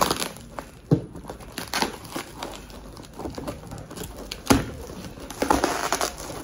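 Bubble wrap and plastic packing crinkling and rustling as hands pull it out of a cardboard box, with a few sharp rips and knocks from the tape and cardboard.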